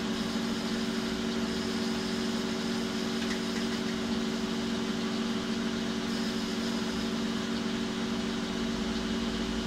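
Metal lathe running with its chuck spinning freely and no cut being taken, a steady hum with several constant tones.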